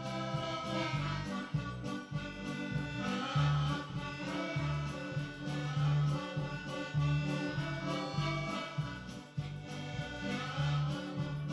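Background music with a steady, rhythmic bass line under sustained pitched parts.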